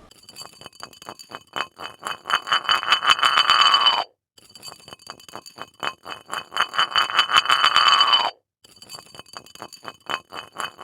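Rapid metallic ringing, like a small bell struck many times a second, in three bursts of about four seconds. Each burst grows louder, then cuts off suddenly.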